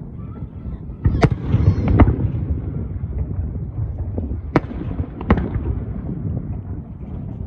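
Aerial firework shells bursting: four sharp bangs, two about a second in and two past the middle, over a continuous low rumble of echoing bursts.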